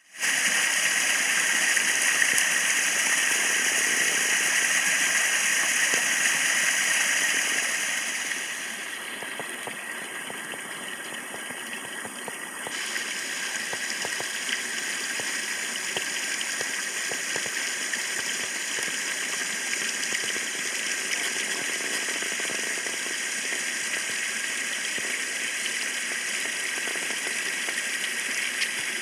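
Rain-swollen woodland waterfall splashing into a shallow pool: a steady rush of falling water. It drops quieter for a few seconds partway through, then runs steady again.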